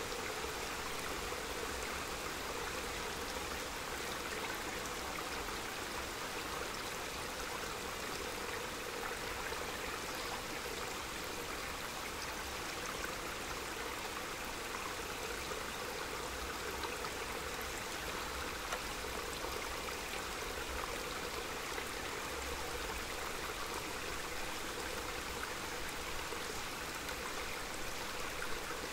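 Small mountain stream babbling steadily over stones.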